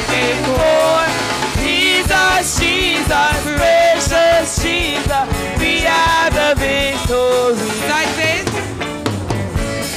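Upbeat gospel chorus sung with a live band: voices carry the melody over a steady drum beat and bass.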